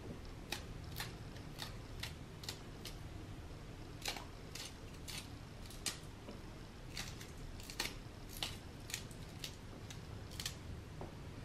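Kitchen knife slicing green chillies held in the hand, each cut a short crisp click as the blade snaps through the chilli, coming irregularly about one or two times a second.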